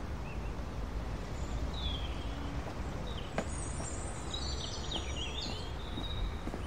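Outdoor ambience: a steady low rumble with birds chirping now and then, several quick chirps coming together in the second half, and one sharp click about halfway through.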